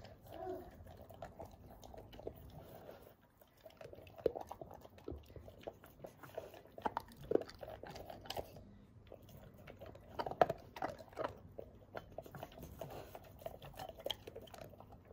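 A Great Pyrenees puppy eating dry kibble from a stainless steel bowl: irregular crunching and chewing, with a short pause about three seconds in.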